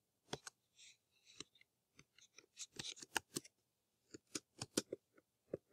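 Faint, irregular clicks and taps, about twenty, some bunched in quick little runs, typical of handling at a computer desk during a screen recording.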